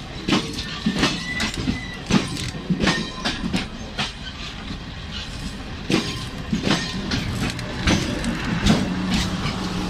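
A train moving along the tracks, its wheels knocking over the rail joints in irregular sharp clacks over a steady rumble. A low steady hum comes in near the end.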